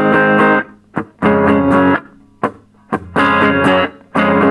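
Les Paul electric guitar played through a Marshall Origin 5C 5-watt all-tube combo: four short, separate chord stabs, each about half a second long, with a hard rather than creamy tone.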